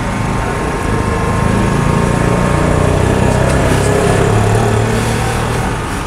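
An engine running, a steady low hum that grows louder about a second in and eases off near the end.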